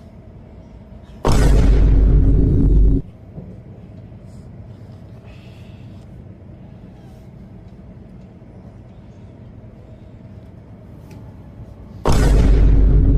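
Two loud, deep booms: one about a second in lasting under two seconds, another starting near the end. Each begins suddenly and cuts off abruptly, over a steady low background hum.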